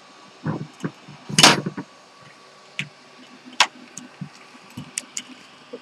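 Handling knocks and clicks on a PC case: a few soft taps, a loud thump about one and a half seconds in, then scattered sharp clicks.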